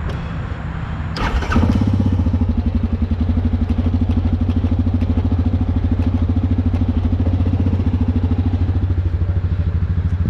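An engine running, with a brief noisy rush about a second in. The engine then speeds up and runs louder, holding a steady, fast-pulsing low note.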